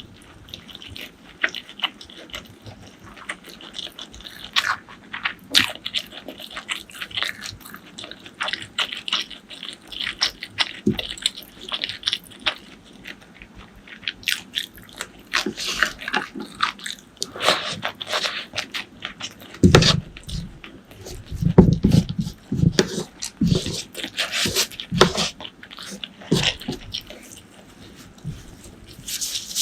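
Close-miked eating sounds: chewing and biting, with many short wet clicks and mouth smacks. A run of louder, fuller mouthfuls comes about twenty seconds in.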